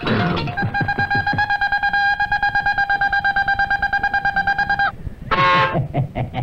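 A buzzer-like pitched tone, pulsing rapidly and evenly at about ten beats a second, holds steady for about four seconds and then cuts off. A brief higher-pitched sound and a few sharp clicks follow near the end.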